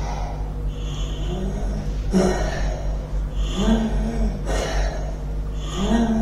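A man gasping and groaning for breath through a bag-valve oxygen mask, several short laboured breaths a second or so apart, as in acute respiratory distress. A steady low hum runs underneath.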